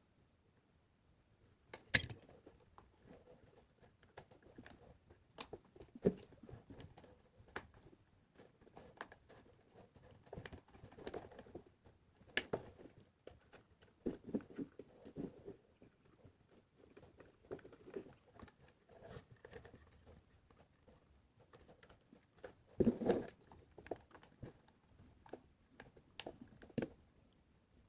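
Quiet, irregular clicks, taps and rustles of small parts being handled. A few sharper clicks stand out, and there is a busier cluster a few seconds before the end.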